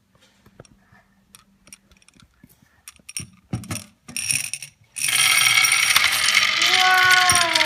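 Gumballs rolling down a plastic marble run: scattered light clicks and clacks at first. About five seconds in, a sudden loud, dense rattle of many gumballs clattering at once.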